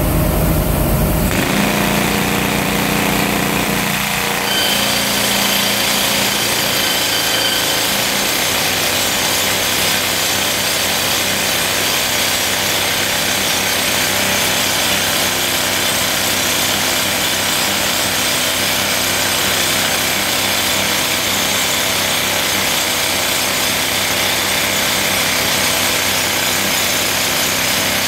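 Toku TS 55 rock drill on a Morath AK12 carrier's arm drilling into rock: a loud, steady drilling noise that sets in about a second in, over the carrier's engine heard running alone at the very start.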